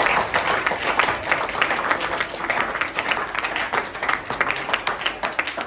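Applause: a group of people clapping steadily, many quick hand claps at once.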